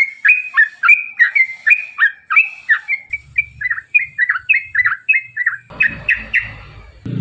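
Yellow-vented bulbul (trucukan) song: a long run of quick, chattering, downslurred notes about three a second, fading over the last second. This is the long rapid 'ropel' phrase that is played to lure other bulbuls into singing.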